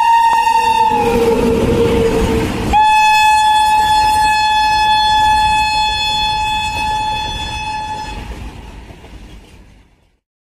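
Train horn sounding as a train passes: a long horn note that drops in pitch about a second in, over the rush of the passing train. A second long, steady horn note starts sharply about three seconds in, and the sound fades out near the end.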